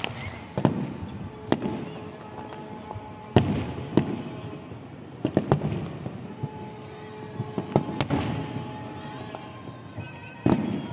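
Aerial firework shells bursting: a string of sharp bangs every second or two, about nine in all, each trailing off in crackle and rumbling echo.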